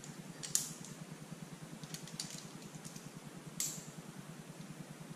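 Climbing gear clinking on a harness: a few short, sharp clicks, one about half a second in, a small cluster around two seconds in and one more near three and a half seconds, over a steady low hum.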